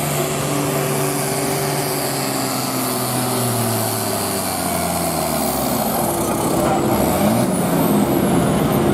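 Diesel farm tractor engine running hard under full load as it drags a weight-transfer sled in a tractor pull, its exhaust pouring black smoke. The engine note sags a little around the middle, then climbs again near the end.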